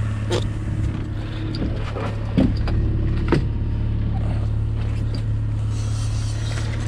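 Boat's outboard motor running steadily at trolling speed, a constant low hum, with a few short knocks and squeaks from fishing gear being handled on the aluminium boat.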